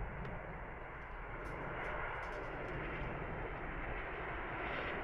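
Jet engines of a Boeing 737 airliner on final approach, a steady rushing rumble that grows gradually louder as it nears.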